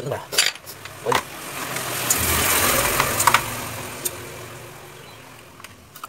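Refrigerator hermetic compressor being switched on for a test: a few clicks, then it runs with a low hum and a hiss that swells for about a second and fades away over the next two or three seconds.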